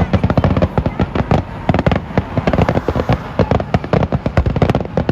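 A dense, rapid barrage of fireworks bursts, many sharp bangs and cracks a second, going on without a break.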